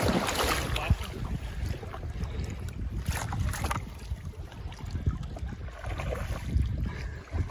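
Wind buffeting the microphone over small waves on the lake, with a couple of brief splashes, the first at the start and another about three seconds in.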